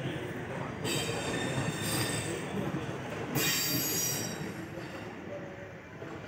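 Passenger train rolling slowly into a station, heard from on board. Its steady rumble carries high-pitched metallic squeals from the wheels that come and go as it slows.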